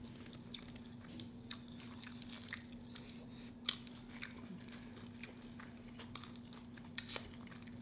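Two people chewing and biting into crisp fried crab balls with a panko crust: soft mouth sounds with scattered sharp crunches and clicks. A faint steady low hum runs underneath.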